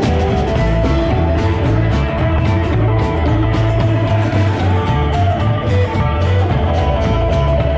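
Live rock-and-roll band playing an instrumental break with no vocals: guitar leads over a steady bass line and regular drum beats.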